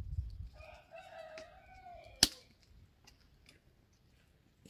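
A rooster crowing once, a single pitched crow of about a second and a half that falls slightly at its end. Just as it ends, a single sharp knock, the loudest sound here, is followed by a few faint scattered clicks.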